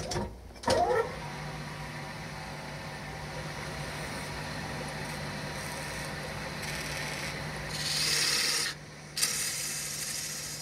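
A small electric power tool is switched on with a couple of clicks and runs up to a steady motor hum. Near the end it is pressed to the workpiece twice, giving two louder stretches of rasping grinding.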